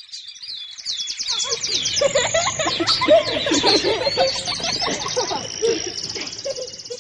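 Many birds chirping and twittering at once in a dense chorus, growing louder over the first second, with a fast, even trill near the end.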